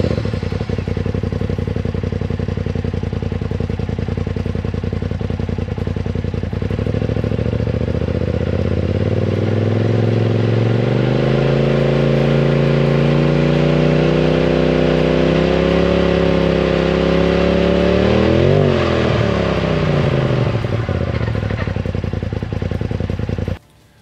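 Polaris RZR Turbo's turbocharged twin-cylinder engine running through a Trinity Racing Stage 5 dual exhaust with only spark arresters and no quiet cores. It idles, climbs steadily and is held at test speed (about 4,000 rpm) for a sound-level reading of about 98 to 99 dB. Near the end it gets one quick rev, drops back to idle, then cuts off suddenly.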